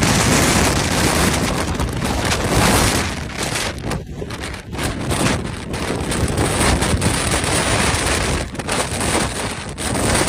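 Storm wind buffeting the microphone: a loud, continuous rushing that swells and drops in gusts.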